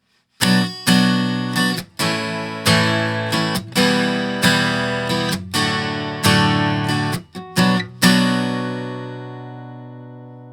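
Acoustic guitar strumming chords recorded through the Antelope Axino Synergy Core modelling microphone. About a dozen strummed chords with brief stops between them, the last one about eight seconds in left ringing and slowly dying away.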